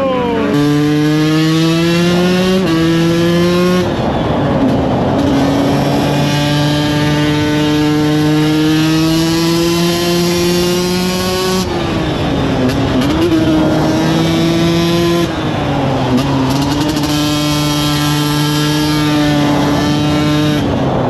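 Small two-stroke motorcycle engine under way: its pitch climbs and drops through two quick gear changes in the first few seconds, then holds a steady, slowly rising note while cruising, easing off briefly twice around the middle.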